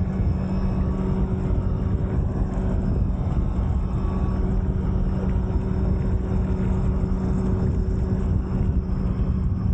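Wind and water rushing past a Fliteboard electric hydrofoil riding at about 24 mph, with a steady low hum under the rush. There is no whistle from the foil wing: the sanded-down trailing edge has cured its whistling.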